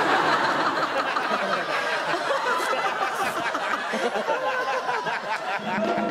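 Studio audience and cast laughing together, a dense, steady wash of many overlapping laughing voices.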